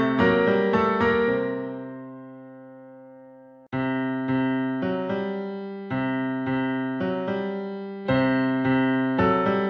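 Background piano music. Notes are struck and left to ring. About a second in, a chord is held and fades away. Playing starts again suddenly about four seconds in and carries on.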